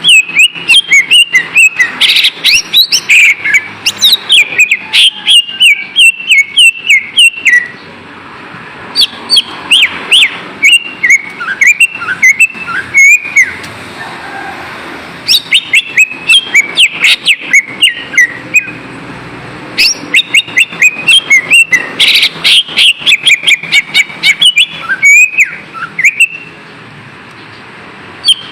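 Cucak ijo (greater green leafbird) singing a long, fast lure song of sliding whistles mixed with sharp clicking notes, in phrases of several seconds with short pauses between them.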